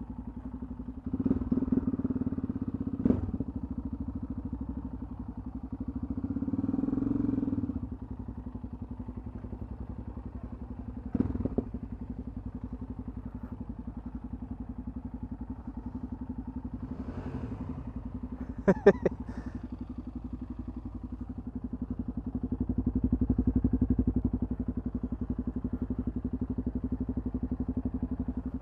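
Single-cylinder motorcycle engine idling steadily, with another motorcycle's engine swelling louder a few times. A few sharp knocks and clicks stand out, the loudest just past the middle.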